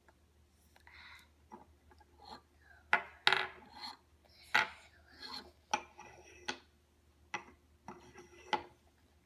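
Painted wooden blocks of a Smart Games Day and Night puzzle being handled and slid onto wooden pegs on a wooden base, knocking and clacking against each other and the stand. The knocks are irregular and sharp, the loudest coming about three to three and a half seconds in.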